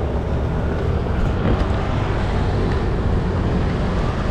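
Steady city street noise: traffic rumble mixed with wind buffeting the microphone.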